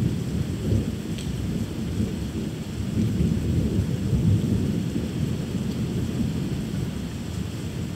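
Thunder rumbling continuously during a thunderstorm, swelling about three to four seconds in, with rain hissing steadily underneath.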